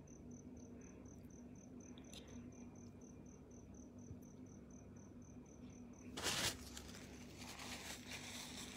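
Faint, rapid, insect-like chirping, about four pulses a second, that stops about six seconds in. A short, loud rustle follows, then softer rustling as a tissue is handled.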